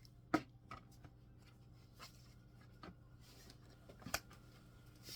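Scattered plastic clicks and knocks as the tube of a Hyper Tough leaf blower is handled and fitted onto the blower, with a sharper click about a third of a second in and another about four seconds in, over a faint steady hum.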